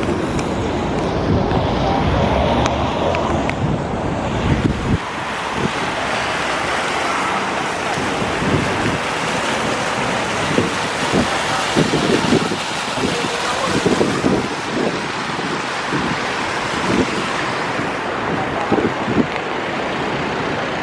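Fountain water splashing in a steady hiss, with low wind rumble on the microphone for the first five seconds.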